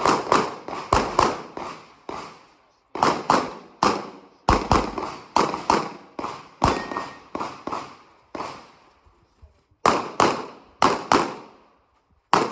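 Glock 34 9mm pistol firing rapid strings of shots, about two to four a second, broken by short pauses of a second or so between strings, with each shot echoing briefly.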